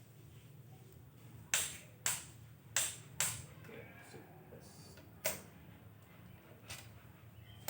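Sharp metallic clicks and knocks of hand tools working on an engine block while the piston cooling jets are fitted. There are six separate clicks, four of them within the first two seconds or so after about a second and a half in.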